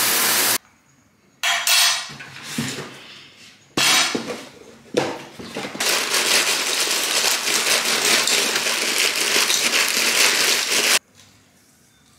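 Shower spray hissing briefly and then cut off, followed by a few short clatters. From about six seconds in, a long dense rattle of bran flakes poured from a plastic bag into a bowl, which stops abruptly about a second before the end.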